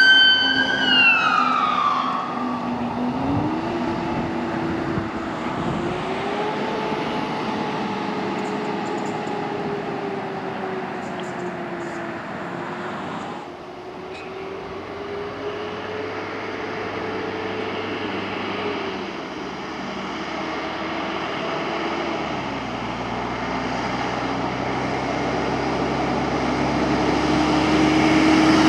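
An emergency vehicle's siren wailing loudly, then falling in pitch and fading as it passes. A fainter siren follows, slowly rising and falling over steady road noise, and another vehicle draws close near the end.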